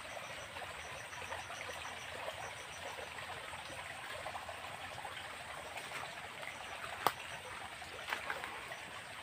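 A shallow creek flowing over stones, a steady trickling rush of water. One sharp click about seven seconds in.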